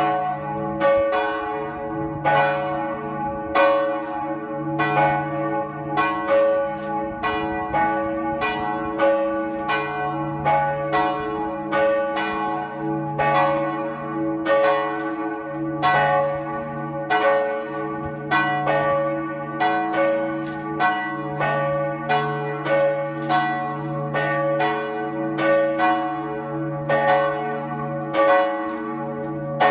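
Two swinging church bells ringing together in a sammanringning, their strokes interleaving unevenly about one or two a second, with each bell's hum hanging on between strikes.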